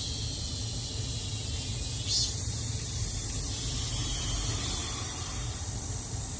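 Cicadas buzzing in a steady, hiss-like chorus; a higher, louder buzz joins about two seconds in and cuts off sharply near the end. A steady low hum runs underneath.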